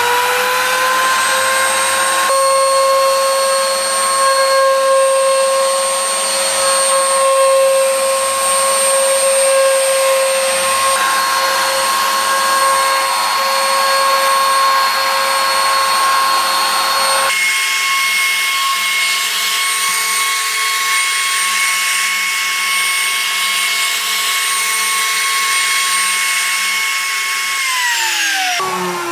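Wood router running at speed on a pantograph, its bit carving a spirograph pattern into a wooden disk: a steady high whine over a hiss of cutting. The motor's pitch falls away near the end as it winds down.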